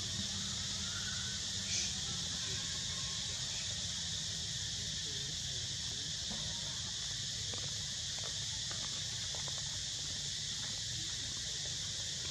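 Steady chorus of insects such as crickets or cicadas over a low rumble, with one brief high chirp about two seconds in and a few faint ticks later on.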